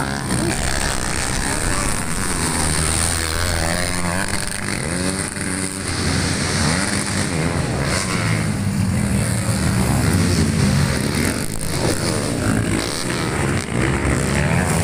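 Several motocross dirt-bike engines revving hard at once, their pitch rising and falling as the riders open and close the throttle.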